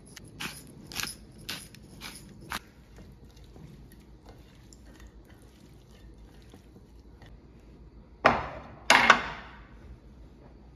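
A hand pepper mill grinding in about five quick twists, a short rasp roughly every half second, for the first two and a half seconds. Then near quiet, and near the end two loud clunks of glassware being set down on the counter, each with a brief ring.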